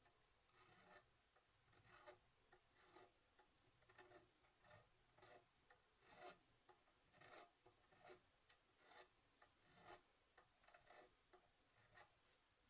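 Faint, even strokes of a file rasping along a guitar's fret ends, about two strokes a second: the sharp fret ends are being filed down.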